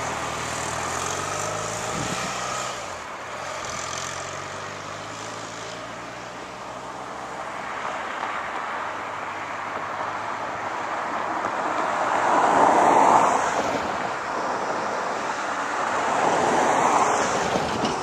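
Distant vehicle engine noise, its pitch shifting over the first few seconds, then a steady rushing noise that swells twice, about twelve and seventeen seconds in.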